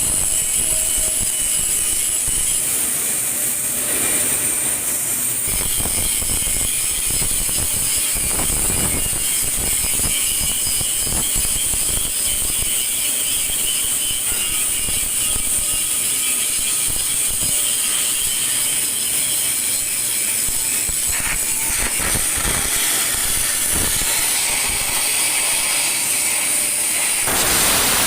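Automatic pipeline welding: a steady, loud, high hiss with crackle from the welding arc, broken by a few clicks or knocks.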